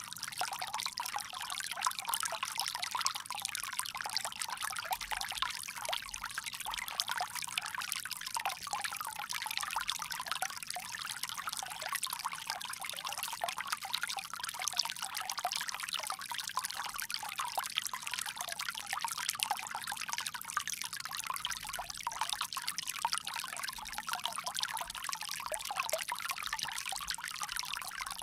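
Water pouring steadily from a bamboo spout, a continuous light splashing trickle with little deep sound to it.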